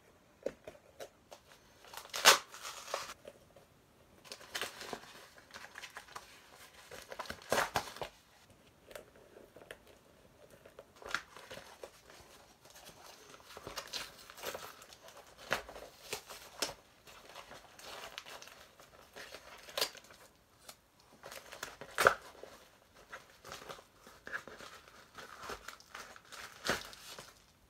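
Paper packaging being torn open and crumpled by hand: irregular rustling, tearing and sharp crackles, loudest about two seconds in and again about twenty-two seconds in.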